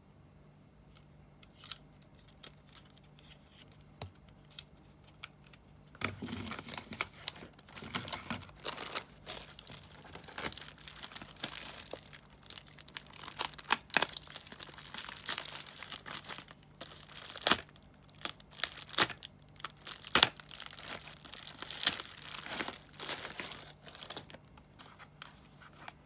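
Thin clear plastic bag crinkling and tearing as it is handled and opened, with sharp crackles. A few faint small clicks come first; the crinkling starts about six seconds in and dies away near the end.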